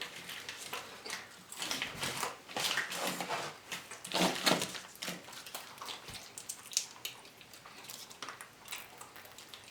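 Irregular soft rustles and small clicks of food and wrappers being handled while a meal is prepared at the table. The loudest come about two, three and four to five seconds in.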